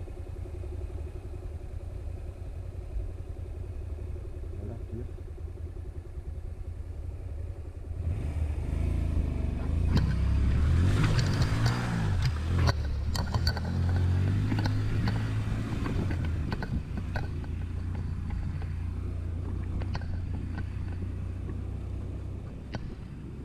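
Honda Varadero 125's small V-twin engine running low and steady, then revved harder with rising and falling pitch for several seconds through the middle, with scattered sharp knocks, before settling back to a steady low run.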